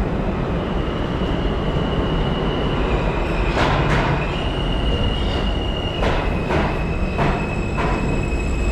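Subway train moving along the platform with a continuous heavy rumble and a thin, high, steady wheel squeal. From about a third of the way in, its wheels clack sharply over the rail joints several times, irregularly spaced.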